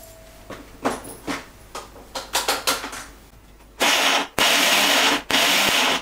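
Clacks and knocks of a steel mixer-grinder jar being set onto the motor base. Then the mixer grinder runs in three short pulses of under a second each, grinding green chillies and ginger into a paste.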